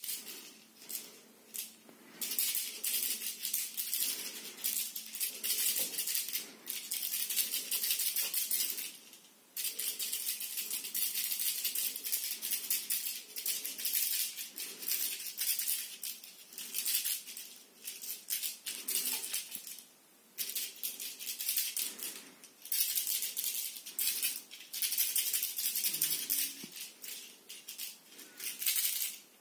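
A cat wand toy being shaken and waved, its ball rattling in long bouts with brief pauses between them.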